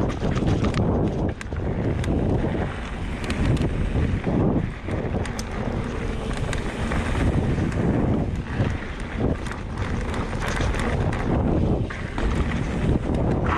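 Wind buffeting the camera's microphone while a Specialized Turbo Levo electric mountain bike rolls fast down a dirt singletrack. Tyre noise on the dirt is broken by frequent short clicks and rattles from the bike over bumps.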